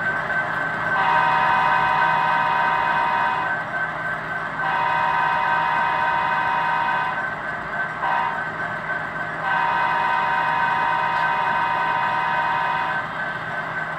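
Sound-decoder horns of HO scale model locomotives played through small onboard speakers: three long multi-chime horn blasts, each about two to three seconds, with a brief toot between the second and third, over a steady hum.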